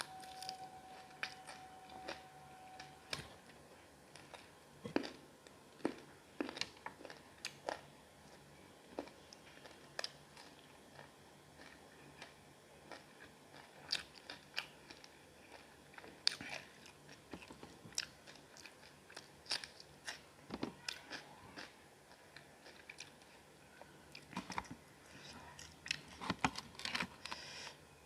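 Close-up chewing and biting of a masala chicken leg piece, with irregular crunchy, smacking bites throughout.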